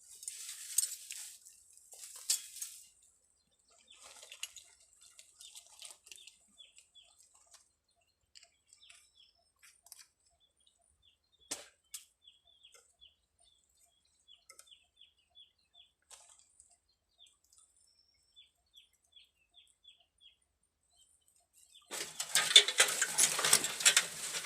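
Small bird chirping in short, repeated high notes, with bursts of hissing noise at the start and a sharp click midway. A louder stretch of broad, crackly noise begins near the end.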